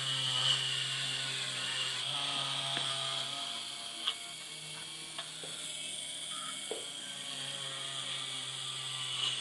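Drilling machine's spindle motor running with a steady high whine over a low hum as it drills a copper-clad board, with a few sharp clicks in the second half.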